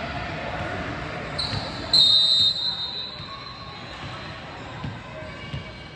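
Referee's whistle: a short blast about a second and a half in, then a louder, longer blast that trails off. Basketballs thud on the court floor under it.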